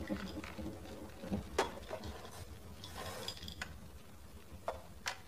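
Glassware clinking and knocking as a glass pitcher and drinking glasses are handled and set down on a table: a few separate sharp clinks spread over the few seconds.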